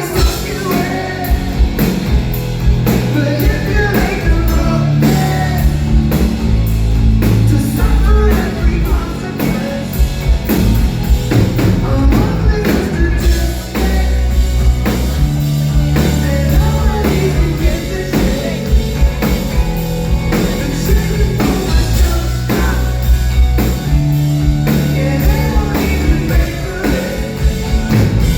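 Rock band playing live through a concert sound system: drum kit, guitars and bass, with singing over them.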